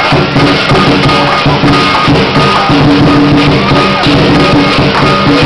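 Chinese lion dance percussion playing loud and without a break: drum strokes under clashing cymbals whose ringing carries through.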